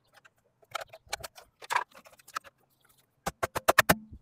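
Scattered plastic clicks as a screwdriver pries at a plastic wheel cover. Near the end comes a quick run of about seven sharp taps from a rubber mallet knocking a new wheel cover into place on the wheel.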